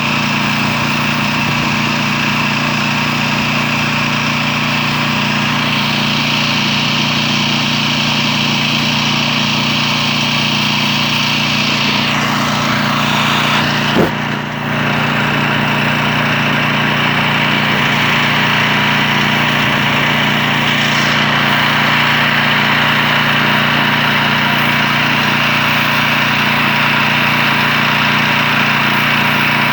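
Pressure washing: a steady engine hum under the continuous hiss of a high-pressure water jet, with a single sharp knock about halfway through.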